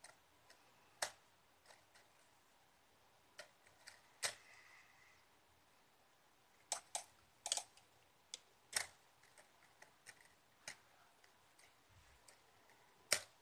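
Plastic spring toy clicking and clacking in scattered sharp taps as a cat bats it with its paw, about a dozen irregular clicks with quiet between, the loudest just before the end.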